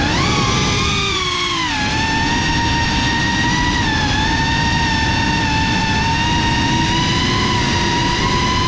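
Onboard audio of a drone's electric motors and propellers: a loud, high whine with overtones over a rush of air. It climbs in pitch right at the start, drops about two seconds in as the throttle eases, then holds steady.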